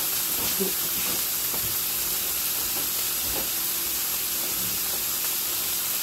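Steak frying in a pan, a steady sizzle.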